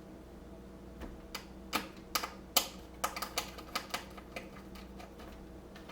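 An irregular run of small, sharp clicks and taps, about a dozen over three seconds: a Phillips screwdriver and small screws knocking against a laptop screen assembly as its mounting screws are taken out.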